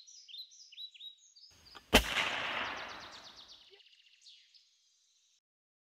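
Outro sound effect: birds chirping in quick repeated downward notes, then a single sharp gunshot-like crack about two seconds in that echoes away over a second and a half, and a short bird trill near the end.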